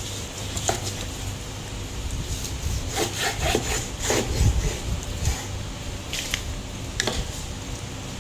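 Knife cutting beef on a wooden cutting board: a back-and-forth sawing and rubbing, with scattered knocks of the blade on the board, busiest in the middle.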